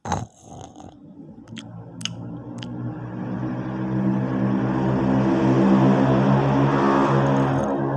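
A man snoring loudly in his sleep: one long, droning snore that builds steadily louder for several seconds and breaks off just before the end, after a sharp click at the start.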